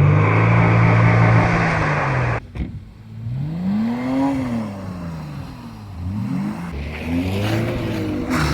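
BMW E34 525i's M20B25 2.5-litre straight-six revving hard. The engine is held at high revs, drops away sharply about two and a half seconds in, gives a rising and falling blip of revs, then climbs again near the end.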